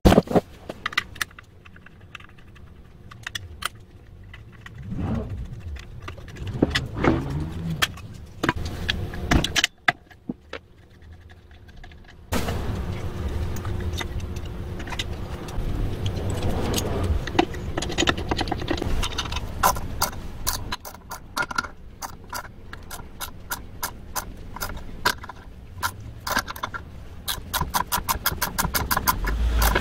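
Metal tools and engine parts clinking and clattering as a four-stroke brush cutter engine's valve train is taken apart by hand. Toward the end there are quick runs of small clicks.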